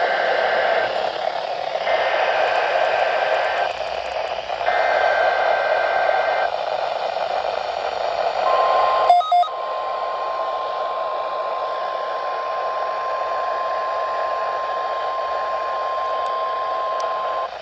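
NOAA Weather Radio Required Weekly Test heard through a receiver over steady static hiss. First come three bursts of the EAS digital header's data tones, each about two seconds long. Then the steady 1050 Hz weather alert tone holds for about nine seconds, with a brief crackle about a second after it begins.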